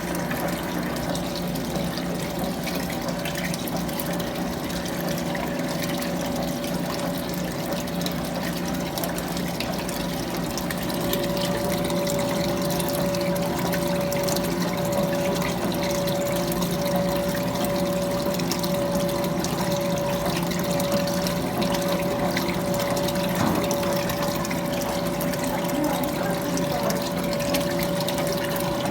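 Electrolux Prosdócimo washing machine in its rinse cycle: running water over a steady machine hum, with a steady whine that grows stronger about eleven seconds in.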